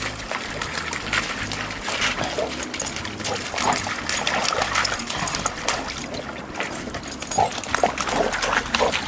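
Two dogs, a yellow Labrador and a black dog, rough-playing in a shallow creek. There is water splashing under their feet and the dogs' short play noises, with a few sharp yelps in the last couple of seconds.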